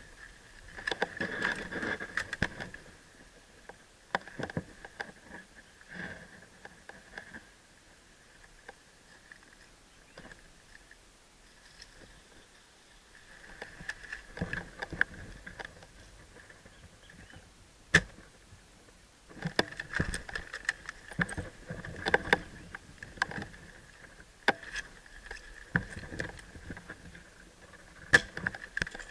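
Footsteps and rustling through brush or leaf litter, in irregular spells of crackling, with one sharp click about eighteen seconds in.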